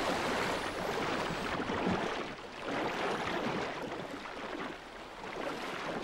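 Sea water splashing and rushing as a pod of dolphins races through the surface. The sound swells and eases several times, dipping a little past two seconds in and again near the end.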